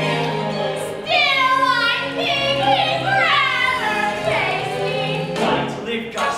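Young theatre cast singing a musical-theatre number over instrumental accompaniment, the vocal line gliding and wavering in pitch, with a few sharp accents near the end.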